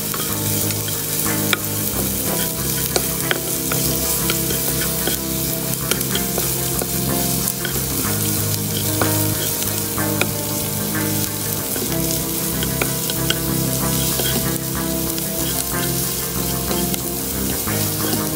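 Diced onion and garlic sizzling in hot oil in a nonstick pot, stirred and scraped with a plastic slotted spatula that gives short scraping clicks throughout.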